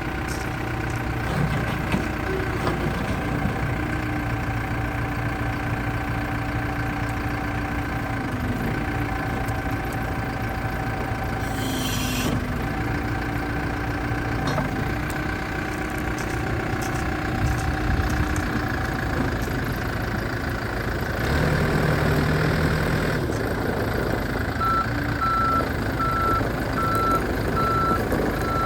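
New Holland B95 backhoe loader running, its engine tone shifting as the machine works, with a brief hiss about twelve seconds in and the engine growing louder past twenty seconds. About four seconds before the end its reversing alarm starts beeping steadily.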